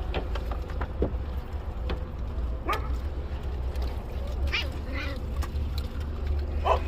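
A few short dog yelps, spaced a second or two apart, over a steady low rumble.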